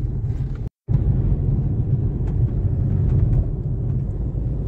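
Steady low rumble of road and engine noise inside a moving car's cabin. It cuts out completely for a split second about a second in, then carries on unchanged.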